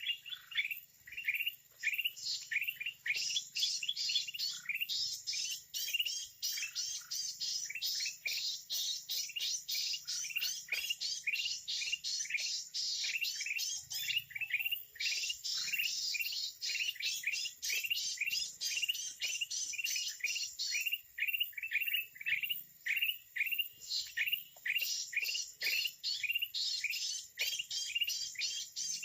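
Red-eyed bulbul calls: a dense chorus of short chirps repeated rapidly, several a second, without a break.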